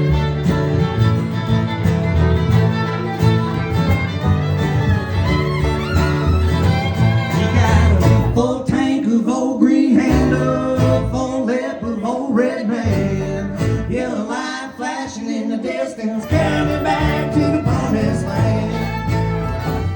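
Bluegrass band playing an instrumental break, with a fiddle over guitar. The low bass drops out for several seconds in the middle and comes back in near the end.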